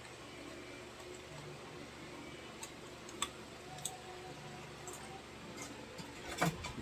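A few light clicks and taps of small hand tools handling an engine control module, with a louder cluster of clicks near the end, over a faint steady hum.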